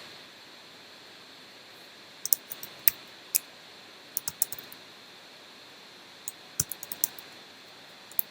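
Computer keyboard typing in three short bursts of a few keystrokes each, with one more keystroke near the end.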